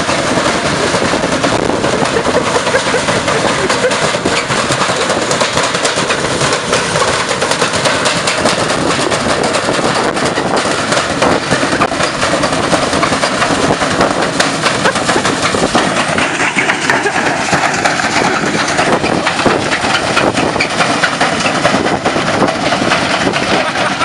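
Front-loading washing machine spinning with a stone in its drum: a loud, continuous rapid clattering and banging as the stone hammers the drum and the badly unbalanced machine shakes. About sixteen seconds in, a motor whine rises in pitch as the drum speeds up.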